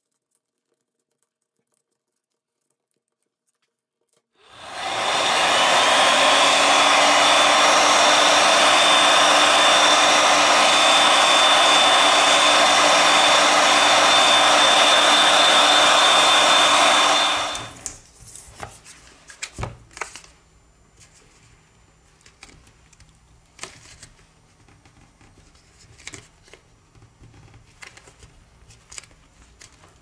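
Heat gun blowing hot air steadily onto the opened phone for about thirteen seconds, its fan whine rising briefly as it spins up, then shutting off; the heat softens the adhesive inside the phone. Faint clicks and scrapes follow as a playing card is worked into the frame.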